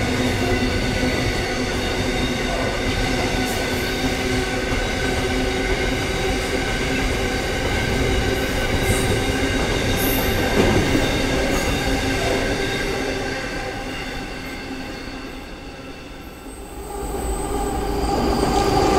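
Container freight train's wagons rolling past on the tracks, a steady rumble with a ringing squeal from the wheels over it. The sound fades away about 16 seconds in, then a diesel freight locomotive grows louder as it approaches near the end.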